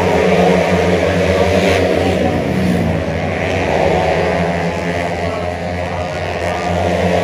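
Racing automatic scooters in a 130 cc open class running flat out past the track side, engine pitch sweeping up and down as they go by, over a steady low hum.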